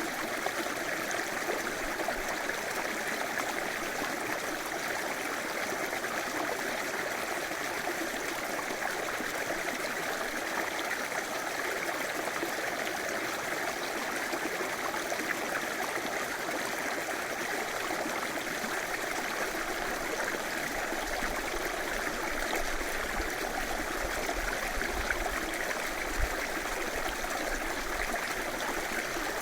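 River water flowing steadily, an even, continuous rushing and burbling without pause.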